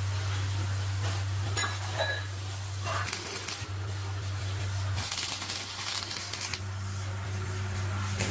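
Small metal parts clinking and ringing against each other a few times, over a steady low hum, with stretches of hissing noise.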